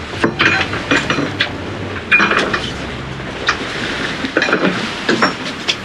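Irregular knocks, clatter and splashing as a tuna is gaffed and dragged against the side of a fiberglass fishing boat, over the low hum of the idling outboard.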